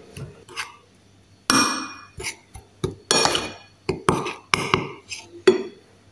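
Metal spoon scraping and clinking against a dish as grated cheese is stirred into flour, in a run of short, irregular strokes starting about a second and a half in.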